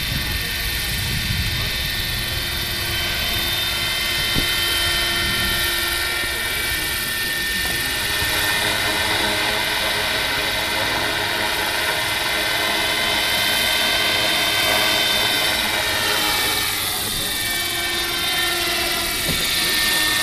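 Large five-blade radio-controlled helicopter in flight: a steady whine from its drive and rotor, whose pitch slides about three quarters of the way through.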